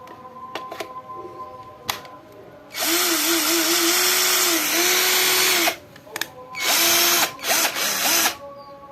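36VF cordless drill motor: a few light clicks, then the motor runs for about three seconds and gives two shorter bursts near the end.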